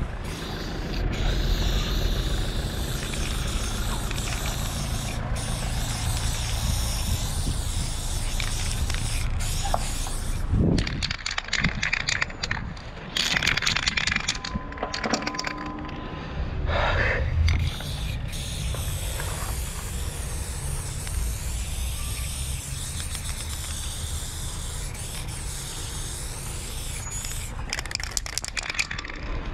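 Aerosol spray-paint can hissing as graffiti is sprayed onto a wall, over a steady low rumble of street noise.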